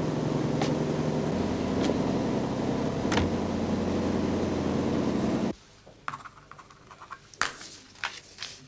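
A boat's engine running with a steady low hum and a few sharp clicks over it. It cuts off abruptly about five and a half seconds in, leaving a quiet room with scattered small clicks and knocks.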